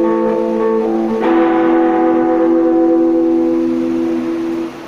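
Electric guitar playing sustained chords: a change to a new chord about a second in, which is left ringing for about three and a half seconds and then cut off near the end, leaving a steady hiss.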